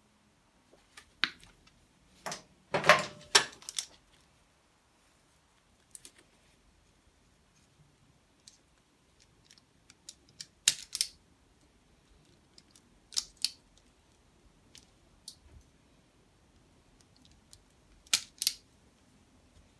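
Wire cutters snipping and clicking through the wires of a motorbike wiring loom: scattered sharp snips, the loudest cluster about three seconds in and further groups near the middle and the end.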